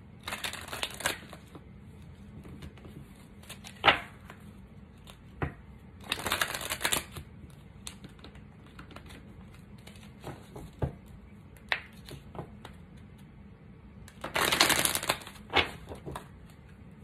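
A deck of oracle cards being shuffled by hand: three riffling bursts, each about a second long, with scattered clicks of cards in between.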